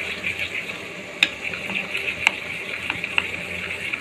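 A steel spoon stirring a thin gram-flour and water batter in a steel bowl, a steady scraping swish with a few sharp clinks of the spoon against the bowl.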